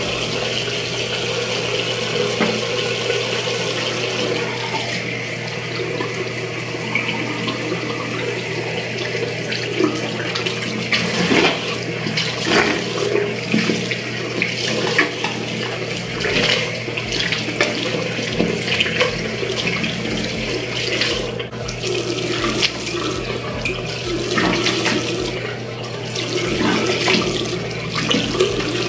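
Water running steadily from a tap into a bathroom sink, with irregular splashing from about ten seconds in as the sink is used for rinsing after toothbrushing.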